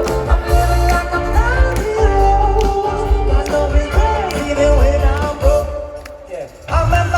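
A live rock band playing with singing, over a heavy bass and kick drum. About six seconds in the music thins out and drops in level, then the full band comes back in near the end.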